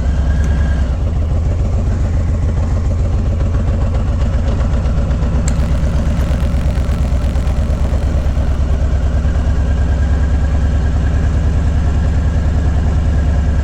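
Harley-Davidson Low Rider S's Milwaukee-Eight 114 V-twin running steadily at low revs, with a regular pulsing beat. There is a short click about five and a half seconds in.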